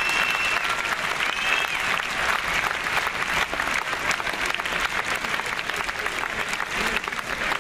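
Large crowd applauding steadily, a dense patter of clapping, cheering a winning racehorse.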